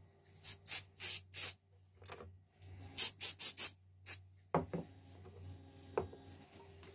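Aerosol spray-paint can sprayed in short hisses: four quick bursts, a pause, then five more. Two light knocks follow on the workbench.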